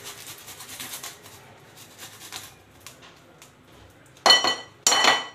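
A garlic clove rubbed on a handheld grater, faint quick rasping strokes, then two loud clattering knocks with a metallic ring about half a second apart near the end.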